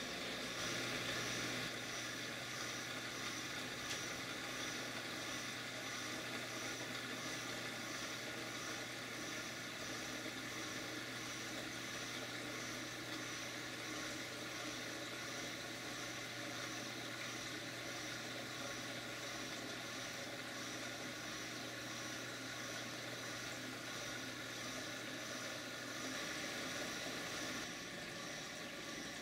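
Steady hum and water noise of a reef aquarium's running equipment: pumps circulating the water, with a low steady hum underneath.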